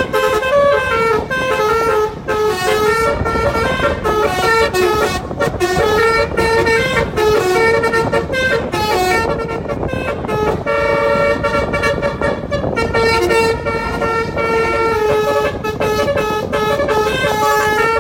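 Telolet horn playing a tune without a break, its pitched notes stepping quickly from one to the next, with some notes held longer.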